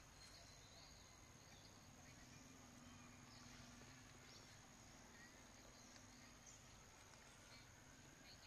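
Near silence: faint outdoor background with a thin, steady high-pitched whine.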